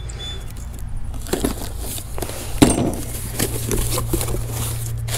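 Cardboard box being opened by hand: the flaps are pulled back and the plastic-wrapped contents rustle, with a few light knocks and scrapes, the sharpest about two and a half seconds in. A steady low hum runs underneath.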